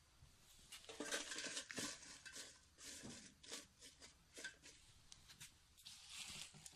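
Quiet, irregular rustling of crushed lime leaves being spread in a cooking pot, with light clicks and clinks of the pot.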